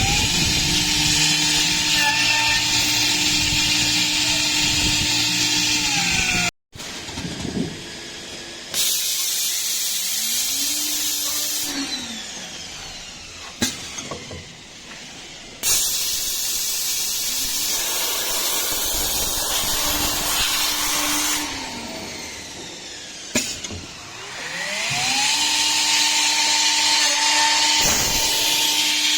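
Side drilling machine's electric motor running through several drilling cycles: it winds up in pitch, runs steady with a loud hiss of cutting, then winds down, over and over. An abrupt cut breaks the sound about six seconds in.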